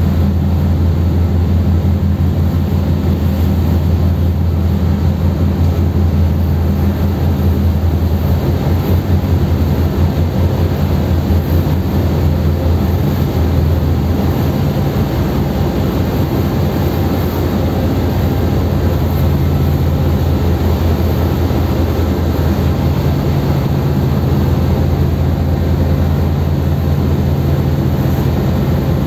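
Car ferry's engines droning steadily from the deck, a deep low hum under a continuous rushing of wind and water, as the ship comes into port; the hum's tone shifts slightly about halfway through and again later.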